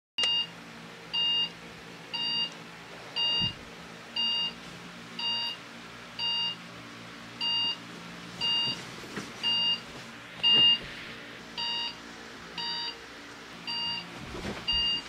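Phone alarm beeping about once a second, each beep short and at a steady pitch, with faint room noise between the beeps.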